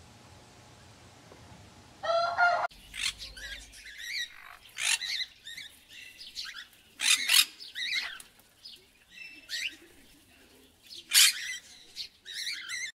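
Scarlet macaws squawking: a run of separate loud squawks and screeches, several seconds of irregular calls. Just before them, about two seconds in, comes a brief rooster call.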